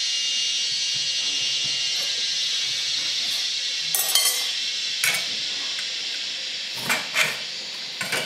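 A steady hiss, with a metal spoon clinking and scraping against an aluminium bowl several times in the second half.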